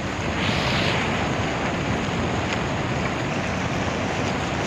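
Muddy floodwater rushing in a steady torrent over a railway track bed, with a brief louder hiss about half a second in.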